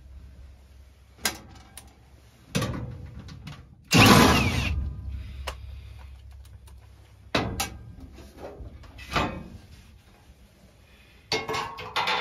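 Sheet-metal furnace access panel being unlatched and lifted off: a series of separate metallic clanks and rattles, the loudest about four seconds in, over the low steady hum of the running gas furnace.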